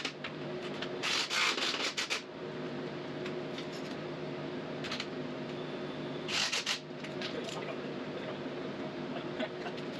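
A handheld power tool working on the steel flighting of a combine auger: a couple of short bursts of harsh scraping noise, the first about a second long, over a steady shop hum.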